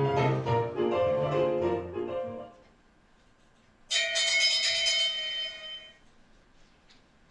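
Piano music playing and fading out about two and a half seconds in. After a short quiet, a sudden bright ringing tone starts and fades away over about two seconds.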